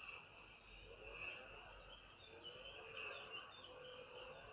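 Faint background chirping: many short, high chirps over a steady high-pitched drone.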